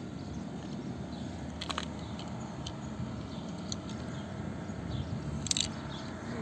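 Small clicks and scrapes of a car door's lock-cylinder assembly being handled, with two sharper clicks, about two seconds in and again near the end, over a steady low rumble.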